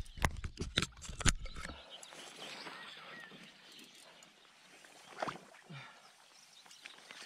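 Knocks and deep rumble from the camera being handled and moved during the first two seconds. Then faint splashing as a hooked asp thrashes at the surface, with two sharper splashes around five and six seconds in.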